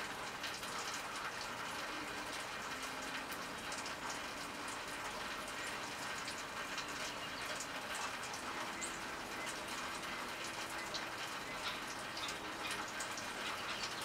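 Steady watery hiss with many small irregular clicks and ticks, like running or dripping water.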